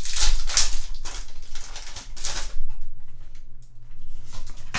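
Foil booster-pack wrapper crinkling as it is torn open and pulled off, loudest in the first second and again about two seconds in, then softer rustling of the trading cards as they are slid out and handled.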